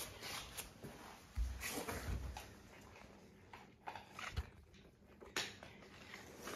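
Young puppies making faint murmurs and snuffles, with scattered soft knocks and scuffs, a couple of low thumps in the first half.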